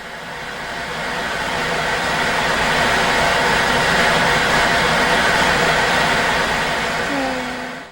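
A loud rushing noise that swells over the first few seconds, holds steady, then cuts off suddenly at the end.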